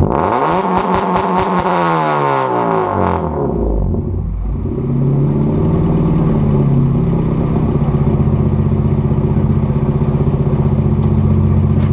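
Car engine breathing through a Buddy Club Spec II exhaust run without its silencer, on long-tube headers. The revs fall from a blip back down over about three seconds, crackling on the way down, then settle into a steady, loud idle.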